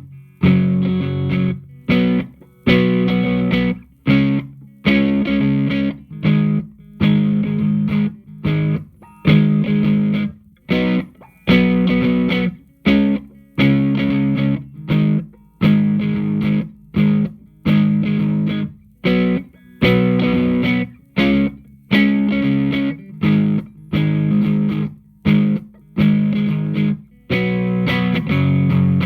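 Electric guitar played through a Hughes & Kettner Attax Metroverb 50-watt transistor combo amp. It plays short, choppy chords, each cut off sharply before the next, a little more than one a second.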